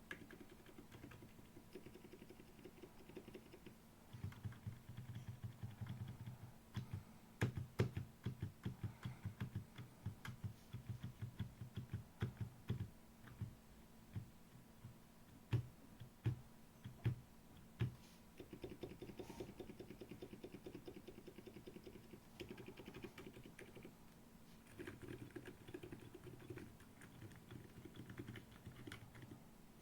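Typing on a Feker FK68T 65% mechanical keyboard with silent Cream Yellow tactile switches and OEM-profile keycaps: quiet keystrokes in quick runs, with a stretch of separate, louder single presses in the middle.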